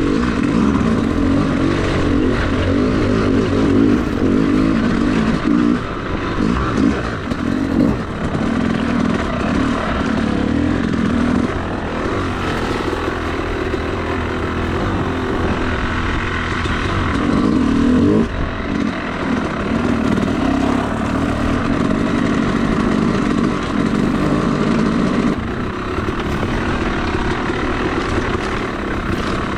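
Yamaha YZ250 two-stroke dirt bike engine running as it is ridden along a trail, its note rising and falling with the throttle and easing off briefly several times.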